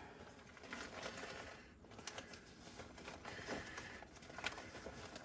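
Faint rustling and a few soft clicks as plastic zip ties are pulled from a bag and dropped into a fabric tool bag.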